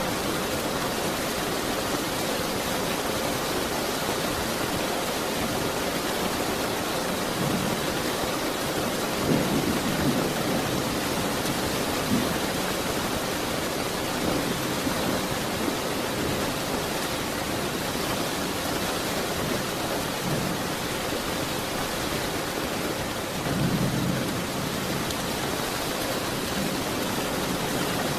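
Steady rain falling in an even hiss, with low rumbles of thunder swelling twice, about nine seconds in and again near the end.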